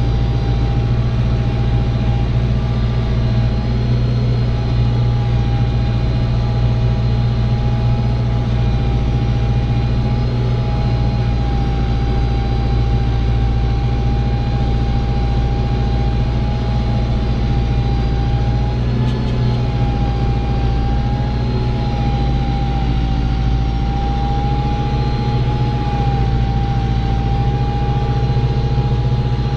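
Diesel farm tractor engine running steadily while ploughing, a constant low drone with a steady high whine above it.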